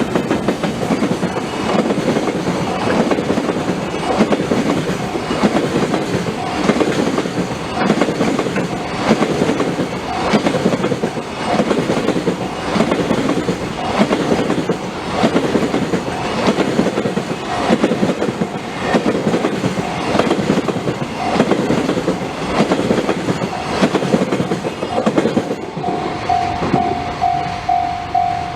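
A long train rolling past, its wheels clacking steadily over the rail joints, while a Japanese level-crossing alarm rings throughout. The crossing bell's pulsing ding stands out more clearly near the end as the train noise fades.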